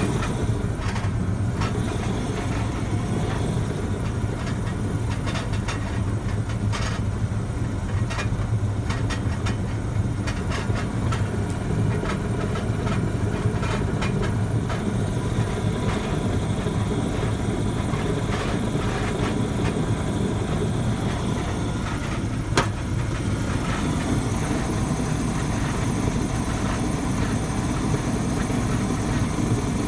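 Waste oil furnace burner firing with a steady low rumble, with light crackling ticks in the first half and one sharp click about 22 seconds in.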